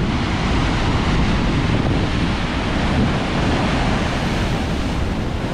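Large storm waves breaking and crashing over shoreline rocks in a continuous wash of surf noise, with strong wind blowing across the microphone.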